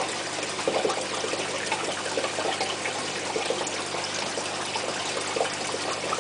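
Aquarium water trickling and bubbling steadily, with many small irregular plops.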